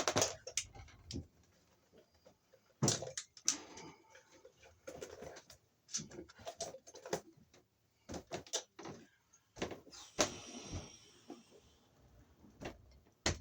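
Scattered clicks and taps of hand tools and stiff electrical wire being handled while preparing a wire for a push-in connector, with a short scraping rasp about ten seconds in.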